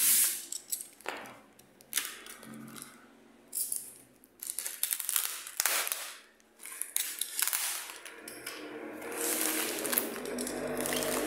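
Box cutter slicing through packing tape and plastic wrap on a styrofoam cooler box, with tearing and crinkling as the wrap is pulled away, in a string of separate scratchy strokes.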